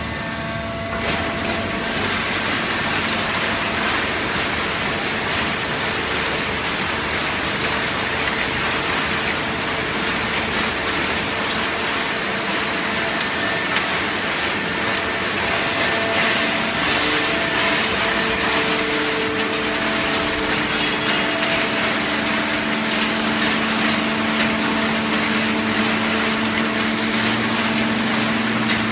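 Fully automatic horizontal hydraulic baling press running: a loud, steady machine din from its pump motor and drive, with a steady hum that grows stronger in the second half.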